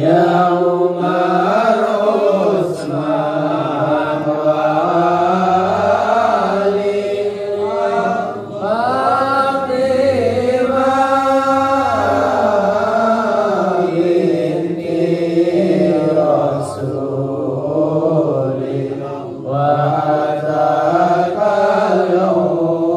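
Men chanting sholawat, an Islamic devotional song of praise to the Prophet, in the standing Serakalan style, the lead voice amplified through a microphone. The melody flows on continuously, with two brief breaks between phrases.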